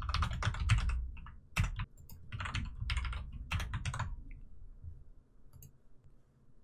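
Typing on a computer keyboard in quick bursts of keystrokes, stopping about four seconds in.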